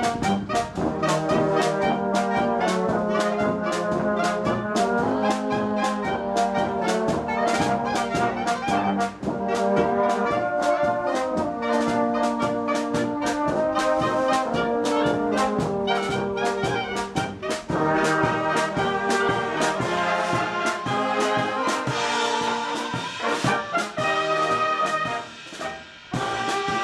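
Bohemian-style brass band (Böhmische Blasmusik) playing live, with trumpets and trombones over a steady oom-pah beat. The band breaks off briefly near the end, then comes back in.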